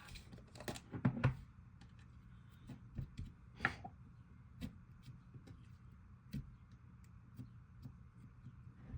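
Slime being squished, stretched and poked by hand for ASMR: faint, irregular small clicks and pops, about one every second or so.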